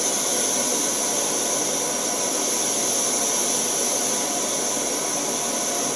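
MSR WhisperLite Universal backpacking stove burning in liquid-feed mode with the heat turned up, a steady rushing hiss from the burner under a covered pot of water.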